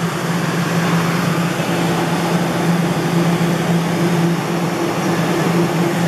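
A steady electrical hum with a loud hiss beneath it. A second, higher hum comes and goes from about a second and a half in.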